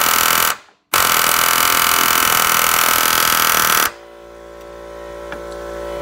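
Pneumatic air hammer running flat out against a seized 1959 VW door hinge pin, driving it up out of the hinge. The hammering breaks off for a moment just under a second in, resumes, and stops abruptly about four seconds in, leaving a fainter steady hum.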